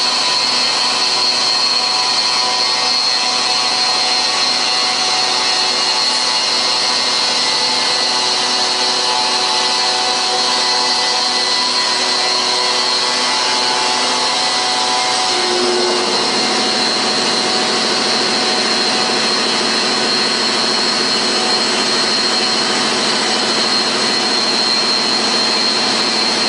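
2006 Scandinvent CNCut CNC stone machine running, its spindle and tool working a clamped granite slab: steady loud machine noise with a high whine. About halfway through, the lower tones glide down briefly and settle into a new, lower set.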